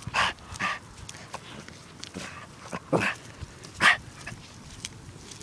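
A dog barking: about five short, separate barks, irregularly spaced.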